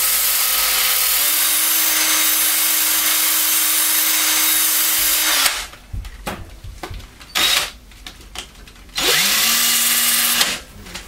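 Cordless drill spinning a 5-inch foam-backed 220-grit sanding disc with a knife edge held against it to reprofile the blade: a steady motor whine with a grinding hiss for about five seconds, then it stops. After a few clicks and knocks, the drill starts again with a rising whine, runs about a second and a half, and stops.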